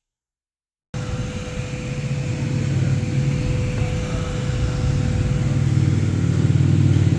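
Laser engraver running: a steady machine hum and whir with a thin steady whine above it, starting suddenly about a second in.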